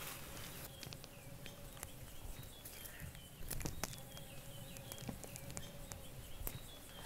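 Quiet outdoor ambience: a bird gives short, high, falling chirps again and again, over scattered faint clicks.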